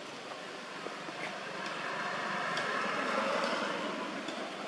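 A vehicle passing by: a steady rushing noise that swells to a peak about three seconds in and then fades.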